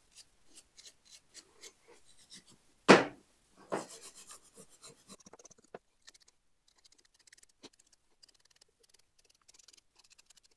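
Scraping and rubbing on the corroded terminals of an old tractor ignition key switch as they are cleaned by hand, in quick short strokes, with one louder thump about three seconds in. The scraping gets fainter and sparser in the second half.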